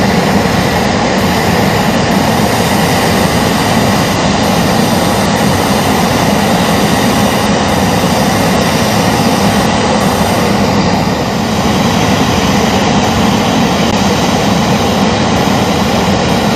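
MV-22 Osprey tiltrotor standing on the ramp with its twin turboshaft engines running and proprotors turning: a loud, steady rumble with no letup.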